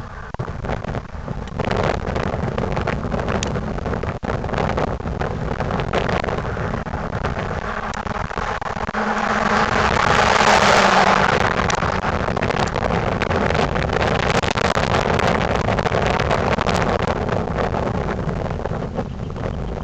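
1998 Ford Crown Victoria Police Interceptor's 4.6-litre V8 driving past with a leaking exhaust, growing louder to a peak about ten seconds in and then fading, with wind noise on the microphone.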